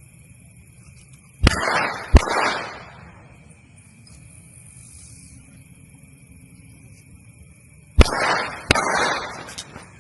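Two Happy Boom Mancis BiBi match-strike firecrackers going off, each with two sharp bangs less than a second apart. The first pair comes about a second and a half in, the second about six seconds later, and each bang trails off in an echo.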